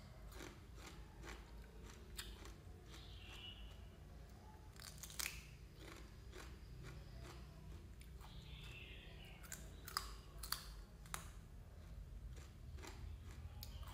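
A person chewing close to the microphone on fresh cucumber and fried sausage, with wet mouth clicks and a few sharp crunches, over a faint low hum.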